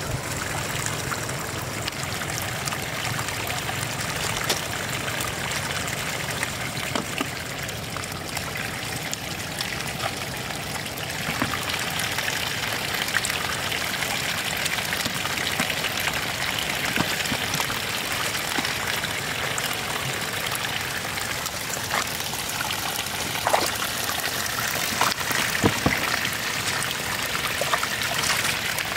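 Floodwater running and trickling steadily, with scattered small splashes and knocks and a few sharper splashes in the last third.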